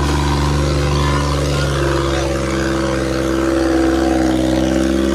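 Tractor engine running steadily under load at high revs, holding an even pitch.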